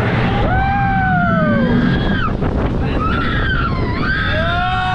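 Wind buffeting the microphone on a moving roller coaster, with riders letting out long rising-and-falling "woo" cries: one about half a second in, and another starting near the end.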